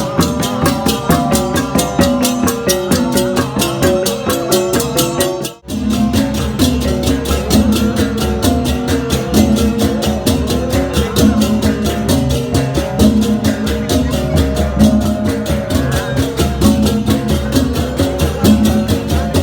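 Balinese gamelan music: fast, dense metallic percussion with repeated pitched gong-chime notes, dropping out for an instant about five and a half seconds in before carrying on.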